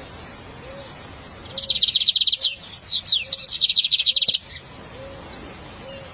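A songbird singing a loud burst of song about a second and a half in, lasting about three seconds: a rapid trill of high notes with quick falling slurred notes in the middle. Fainter high chirps from other birds and a soft low note repeating steadily go on underneath.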